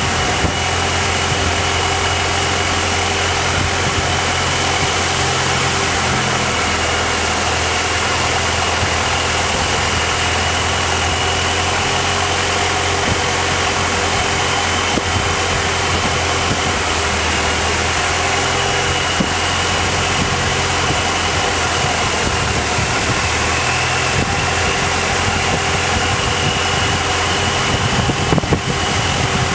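Longtail boat engine running steadily under way, heard from aboard: a loud, even drone with a high whine over it.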